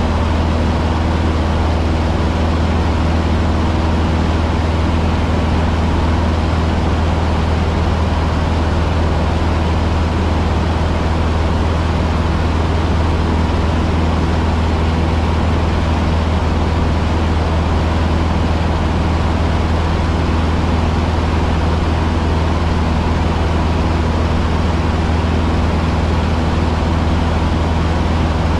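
Cessna 150's four-cylinder Continental O-200 engine and propeller running at a steady power setting, heard inside the cockpit as a loud, unchanging low drone over rushing air noise.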